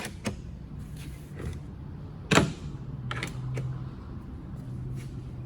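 Clicks and knocks of cabinet door hardware being handled, the loudest a sharp click about two and a half seconds in, with lighter clicks around it, over a steady low hum.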